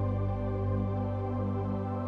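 Background new-age ambient music: a steady sustained synthesizer drone with soft held tones.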